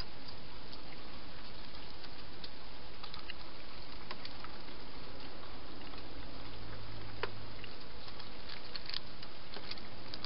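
Steady hiss from the camera's microphone, with scattered soft clicks and ticks and one sharper click about seven seconds in.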